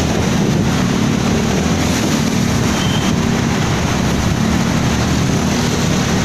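Steady rumbling, rushing vehicle noise with wind buffeting the microphone, even throughout with no distinct events.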